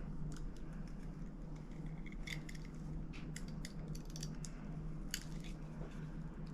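Cutter trimming the insulation off the end of a 2-gauge copper battery cable: a scattered series of small clicks and snips, over a steady low hum.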